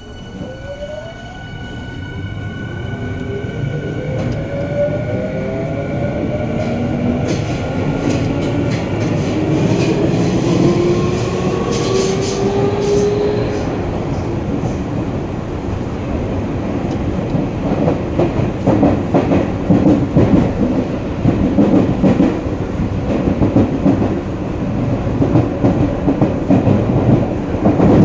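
Yokohama Minatomirai Railway Y500-series electric train pulling away and running through a subway tunnel, heard at the gangway between cars. Its traction motors whine in several tones rising in pitch as it accelerates, building into loud wheel-and-rail noise. In the second half, a rapid clatter of wheels over rail joints comes in.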